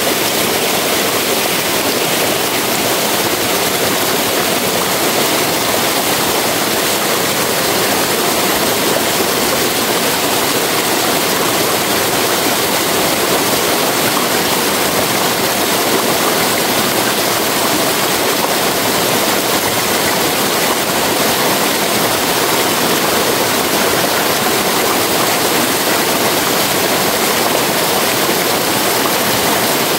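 Steady rushing of running water from a forest stream, an even unbroken hiss with no distinct events.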